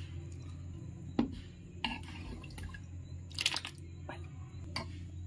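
A serving spoon ladling chicken korma gravy into a dish, with wet dripping and squishing. Several sharp clinks and taps of the spoon against the dish come through, the loudest as a short cluster about three and a half seconds in. A steady low hum sits underneath.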